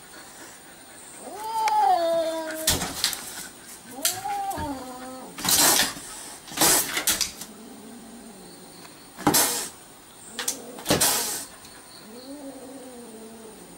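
Cat yowling in three drawn-out, wavering wails and hissing in about six short, sharp bursts: an angry defensive threat at a dog.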